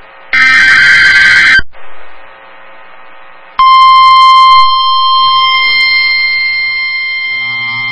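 Emergency Alert System tones: a harsh burst of digital data tones in the first second or so, closing a series of such bursts, then after a short gap a single steady, piercing alert tone that starts about three and a half seconds in and holds.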